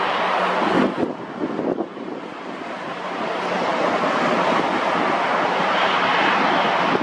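Jet airliner engines making a broad rushing noise that dips about a second in and swells again over the next couple of seconds, mixed with wind buffeting the microphone.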